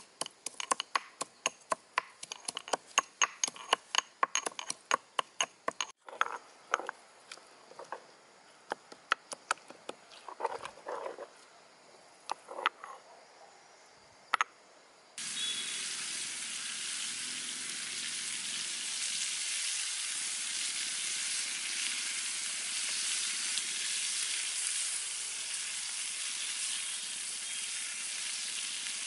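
Stone pestle pounding in a stone mortar, several sharp knocks a second, then slower, wetter mashing of a chili paste. About halfway in this gives way abruptly to chicken sizzling steadily as it fries in a cast-iron skillet over a wood fire.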